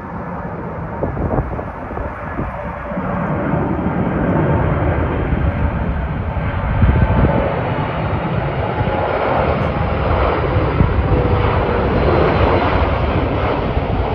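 Four-engine Boeing 747 jet airliner on landing approach with its gear down, passing low overhead: a steady engine rumble with a faint whine, growing louder from about three seconds in and staying loud.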